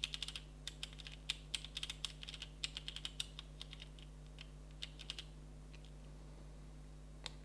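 Panasonic GH5 rear control dial clicking through its detents as it is turned to scroll a menu: a quick, uneven run of small, faint clicks for about five seconds, then a single click near the end.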